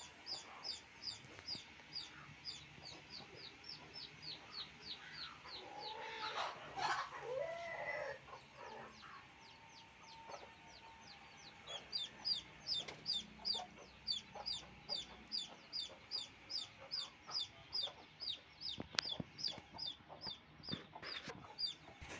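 Chicks peeping: a fast run of short, high, falling peeps, about three a second, that thins out for a few seconds in the middle. A louder, lower chicken call comes about six to eight seconds in, and there are a couple of sharp knocks near the end.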